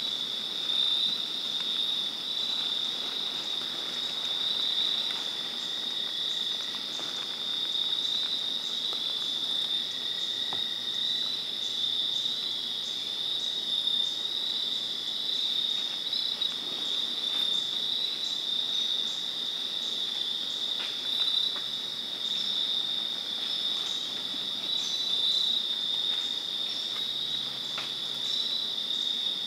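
Evening chorus of crickets and other insects trilling without a break, one steady high-pitched drone.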